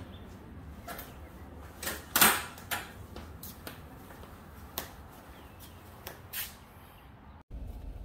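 A handful of scattered knocks and clicks, the loudest about two seconds in, as a person steps down off a metal folding step stool and walks across a garage floor.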